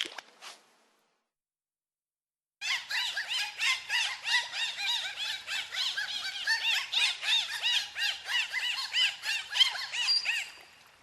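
Dolphins whistling: many short rising-and-falling whistles overlapping in quick succession, starting after a short silence about two and a half seconds in and fading out near the end.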